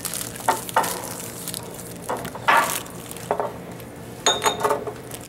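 Plates, forks and condiment bottles being gathered up off a table: scattered clatters and scrapes of dishes and cutlery, with a brief ringing clink near the end.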